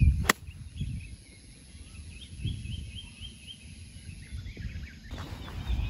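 A golf club strikes the ball with a single sharp click just after the start, during a full approach swing. Afterwards birds chirp in short repeated calls over a low outdoor rumble.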